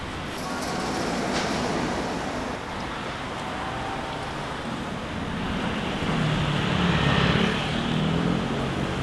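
A road vehicle running: a steady rumble of engine and road noise that swells about six seconds in.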